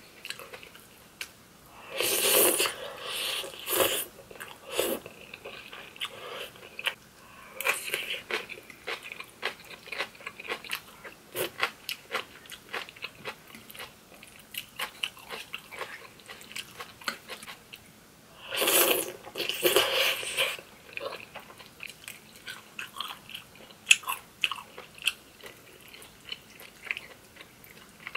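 Close-miked eating sounds: a person chewing and crunching crispy air-fried beef large intestine (so-daechang) with cream pasta. There are many small crackling clicks, and two louder stretches of a couple of seconds each, about two seconds in and about two-thirds of the way through.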